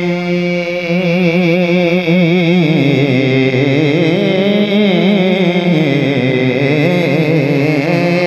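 A man singing a long, drawn-out note of Punjabi Sufi devotional verse (kalam), the pitch wavering and ornamented, over a steady low drone.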